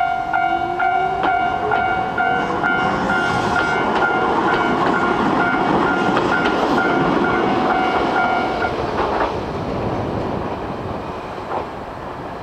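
Japanese level-crossing warning bell clanging about three times a second as a Nagano Electric Railway train passes over the crossing with a clickety-clack rumble. A low tone rises in pitch over the first few seconds. The bell stops about nine seconds in and the train noise then fades.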